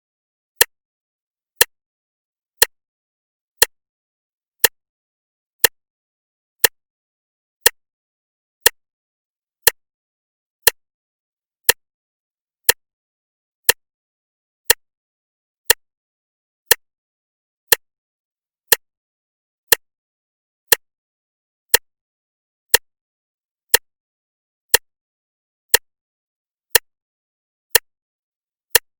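A clock ticking steadily, one sharp tick each second, with silence between the ticks.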